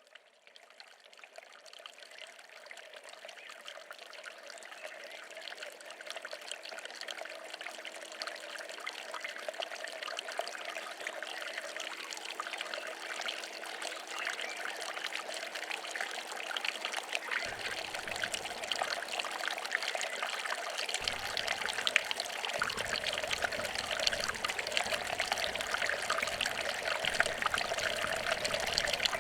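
Stream water trickling and splashing, fading in over the first few seconds and slowly growing louder. A faint steady low hum underneath stops about two-thirds of the way through.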